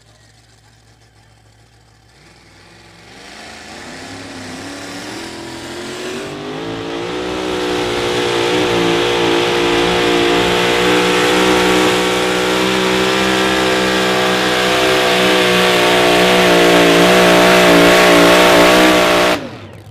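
Two-wheel-drive pulling truck's engine at full throttle on a pull, dragging the weight sled. It starts faint, climbs in revs over a few seconds, then holds high revs with a slightly wavering pitch, and cuts off abruptly just before the end.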